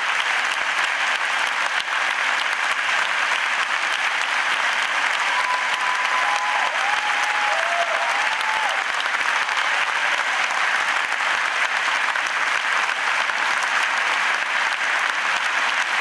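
Large audience applauding steadily in a concert hall, with a few drawn-out calls from the crowd about a third of the way through.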